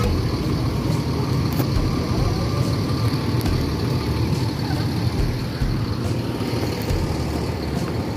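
Tour bus diesel engine running steadily at low speed, a low rumble.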